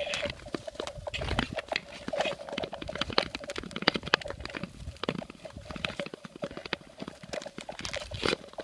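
Long-distance skates on clear black lake ice: blades scraping and the skating poles striking the ice, heard as a rapid, irregular run of sharp clicks and knocks over a faint steady hum.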